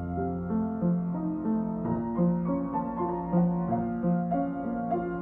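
Steinway Model 45 upright piano played with both hands: a bass line under chords and a melody, the notes changing about twice a second.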